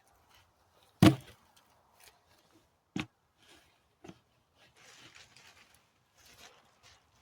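Clamps being handled and fitted onto a wooden frame: a sharp knock about a second in, another about two seconds later and a fainter one after it, then a stretch of soft rustling.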